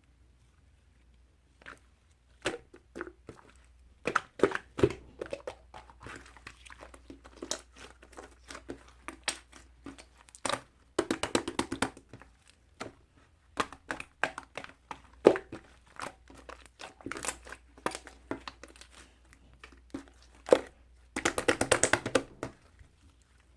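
Slime being squished and played with by hand: irregular clicks and pops, with two denser runs of rapid popping about halfway through and near the end.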